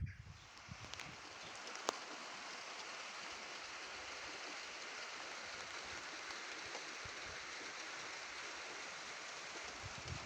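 Light rain falling in a steady hiss, with one sharp tick about two seconds in.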